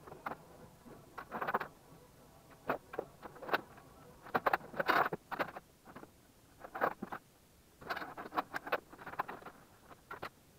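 Cables and plugs being handled: irregular rustles, scrapes and small clatters, with a few sharp clicks, in quick clusters with short pauses between them.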